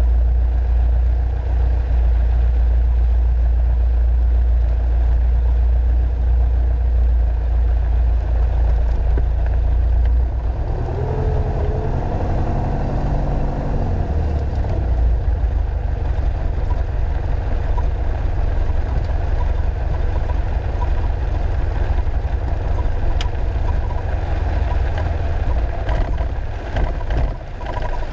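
Piper Archer II's four-cylinder Lycoming engine and propeller running at low taxi power, heard inside the cockpit as a loud steady drone. About ten seconds in, the deep hum shifts and a few tones glide briefly as the engine speed changes.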